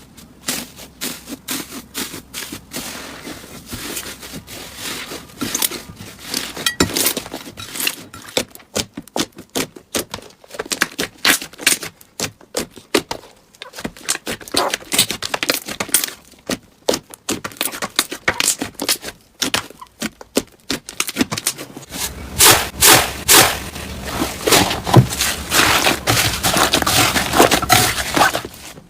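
Slime being squeezed, poked and stretched by hand, making dense, irregular crackling and popping clicks that grow louder about seven seconds before the end.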